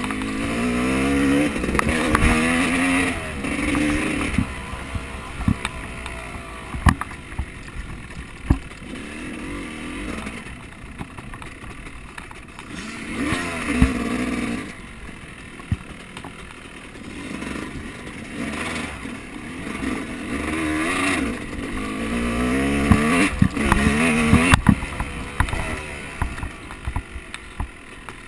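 An off-road vehicle's engine revving up in repeated surges, its pitch rising three times, with many sharp knocks and clatters along the way.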